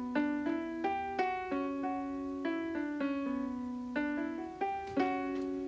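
Background piano music: a steady run of single notes, about three a second, each fading after it is struck.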